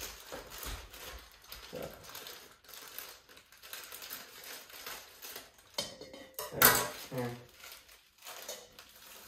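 Scissors cutting open a plastic bag of cake mix, the bag crinkling and handling noises clinking lightly against a stainless steel mixing bowl. A brief louder burst comes about six and a half seconds in.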